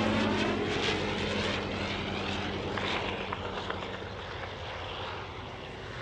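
Rotary engine of a World War I Fokker fighter running steadily in flight, the propeller drone fading as the plane draws away.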